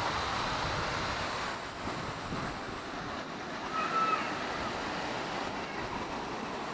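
Steady rushing of wind and running stream water heard from a moving chairlift, easing a little about a second and a half in. A short high chirp sounds about four seconds in.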